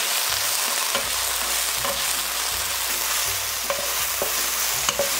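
Thin strips of marinated beef sizzling in hot oil in an electric nonstick wok, stirred with a wooden spatula that scrapes and knocks against the pan a few times.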